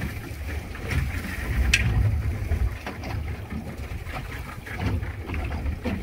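Wind buffeting the microphone and water washing against a small open fishing boat on choppy sea, with a brief click about two seconds in.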